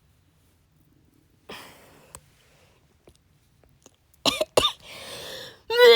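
A person coughing in a fit: two sharp coughs about four seconds in, a rasping breath, then a louder run of harsh coughs starting near the end.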